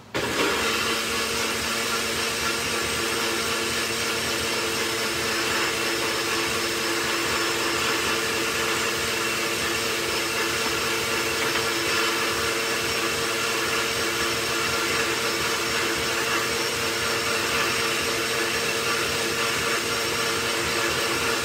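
NutriBullet personal blender switching on and running steadily at one even pitch, blending a chile sauce of chile de árbol salsa and dried chile piquín.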